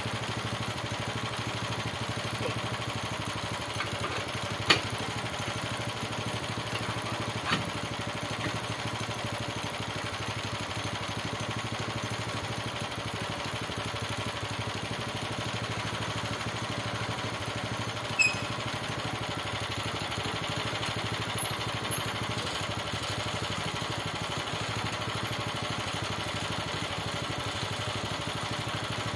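Small gasoline engine on a homemade bandsaw sawmill idling steadily, with no cutting load. A few sharp knocks stand out over it.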